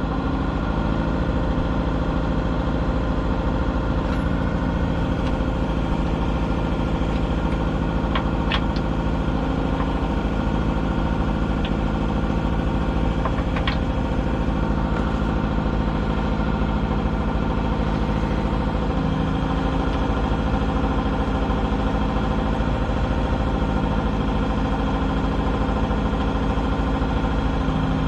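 An engine idling steadily, with a few light metallic clinks about eight and thirteen seconds in.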